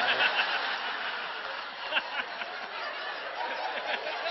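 Audience laughing after a punchline.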